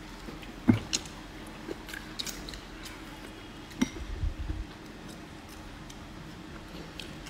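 A person chewing a mouthful of stir-fried green chilies and pork, with scattered soft clicks and smacks and a low thump about four seconds in.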